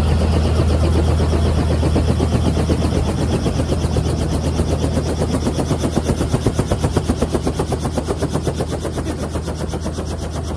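Light helicopter running on the ground: its two-blade main rotor beats in a rapid, even chop over the steady hum of the engine. The sound gets gradually fainter toward the end.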